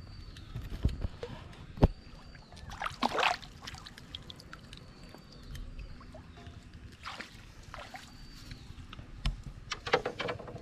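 Water splashing and sloshing as a hooked magur (walking catfish) thrashes at the surface and is lifted out on the line. There is a sharp knock near two seconds in and a louder burst of splashing about three seconds in.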